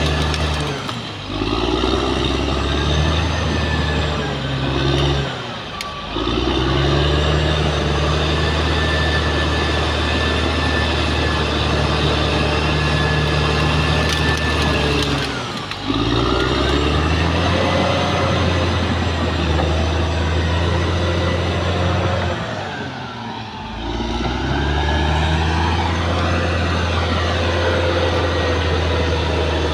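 Caterpillar D6R XL bulldozer's diesel engine working under load, its note dipping briefly and picking back up about four times.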